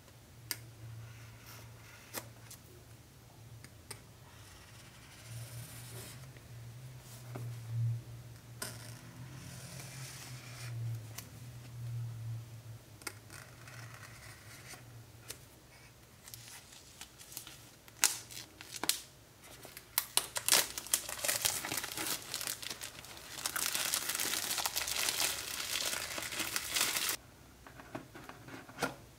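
Smartphone box packaging being opened by hand. Scattered clicks and soft rustling come first, then several seconds of loud tearing and crinkling of packaging that stops abruptly near the end.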